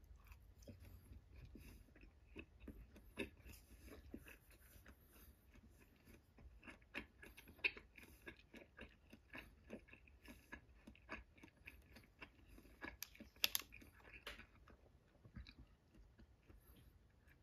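A person chewing a mouthful of inari sushi close to the microphone: soft, irregular chewing noises and mouth clicks, with a few sharper clicks standing out.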